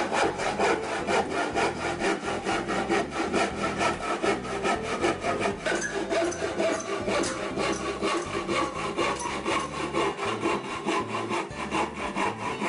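Hand saw cutting into a wooden block in a quick, even rhythm of back-and-forth strokes, the teeth rasping through the wood.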